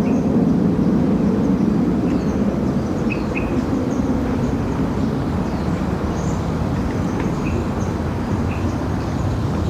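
Steady low outdoor rumble with scattered short, high bird chirps over it.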